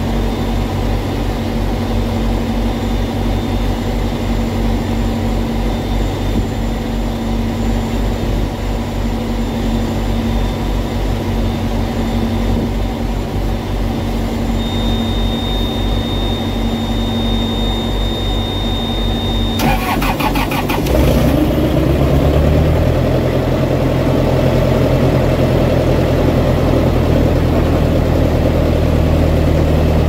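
Small diesel engine of a trailer reefer unit, with a steady whine over it, being cranked after its fuel system was hand-primed following a cold-weather no-start. About twenty seconds in there is a brief rattle of clicks, then the engine catches and runs louder and steady.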